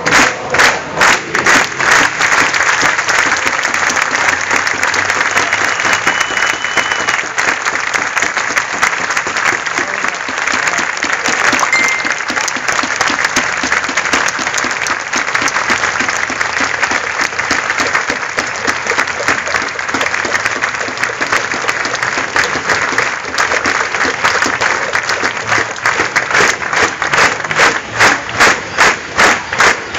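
Large crowd clapping. Dense applause falls into steady rhythmic clapping near the end, about two or three claps a second.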